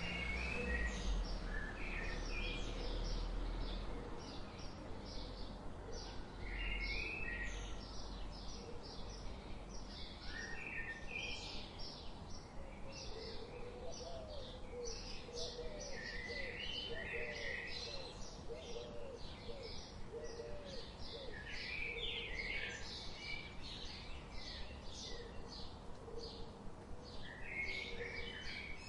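Birds chirping and calling steadily, a dense run of short high chirps with repeated small call groups, over a low rumble that fades after the first few seconds.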